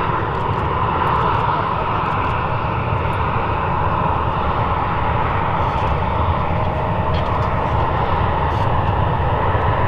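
Boeing 737-700 BBJ's CFM56-7B turbofan engines running as the jet taxis: a steady jet hum with a deep rumble underneath.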